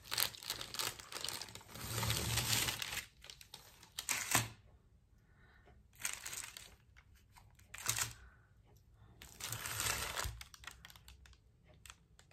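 Rustling and crinkling of the sheet covering the worktable, with small clicks, as a glass block strung with fairy-light wire is handled and moved. The rustling comes in about six separate bursts with a few seconds' pause between some of them.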